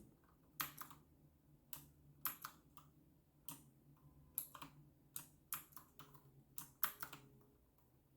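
Clicky key presses on an RK Royal Kludge typewriter-style mechanical keyboard: about fifteen sharp clicks at an uneven pace, often two or three close together, as the keys are tried out.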